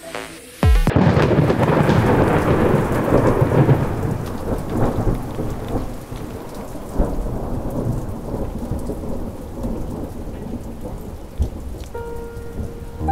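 Dance music cuts off just under a second in, and a sudden clap of thunder follows, rumbling and fading over several seconds. Under it is steady heavy rain. Soft piano notes come in near the end.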